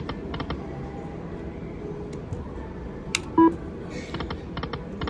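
Lightning Link video slot machine spinning: groups of quick sharp clicks as the reels run and stop, over a steady casino hum, with one short loud tone about three and a half seconds in.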